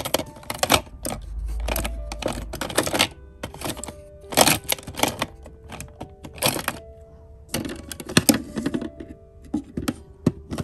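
Small plastic items and stationery in a drawer clicking and clattering in quick irregular clusters as they are picked up and moved around by hand.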